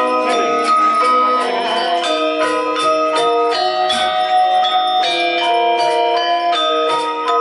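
Balinese gamelan playing: bronze metallophones ringing in a fast run of struck notes over a steady pulse of sharp, bright strokes.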